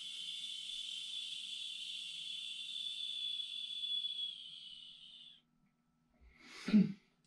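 A man's long, steady 'sss' exhale with the tongue against the roof of the mouth: the qigong healing sound for the lungs. It fades out about five seconds in, and near the end comes a short, louder breath.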